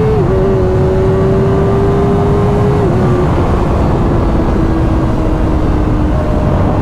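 Kawasaki ZX-4RR's 399 cc inline-four running at high, steady revs through a Graves carbon-fibre slip-on exhaust while being ridden. The pitch holds with two short dips in the first three seconds, then slowly sinks as the bike eases off. Wind rumble on the microphone runs underneath.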